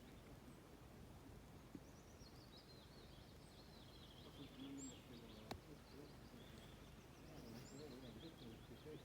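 Faint birdsong: repeated high chirps and short trilled phrases, with one sharp click about five and a half seconds in.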